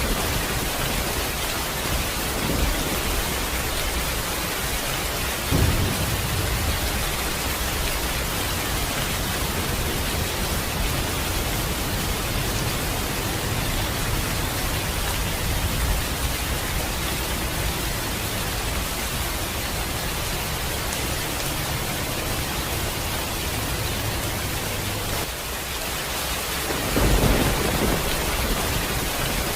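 Steady heavy rain with thunder rumbling, swelling to louder low rolls about six seconds in and again near the end.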